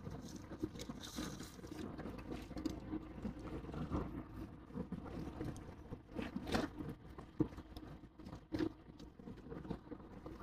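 Vehicle driving on a rough road, heard from inside: a low rumble under irregular soft knocks and rattles, with sharper knocks about six and a half and eight and a half seconds in.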